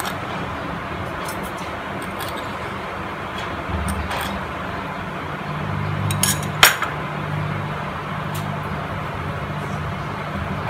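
Steady hiss of a gas burner heating a stainless steel pan with oil in it, with a few light metallic clinks; the sharpest clink comes about two-thirds of the way through.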